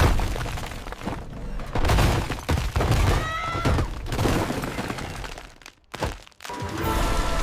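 Cartoon crash sound effects: a sudden loud crack, then several seconds of breaking and rumbling impacts, cut short about six seconds in, with background music coming back near the end.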